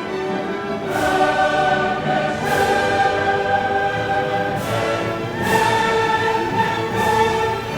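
Background music: choral and orchestral music with sustained chords that change about every second or two.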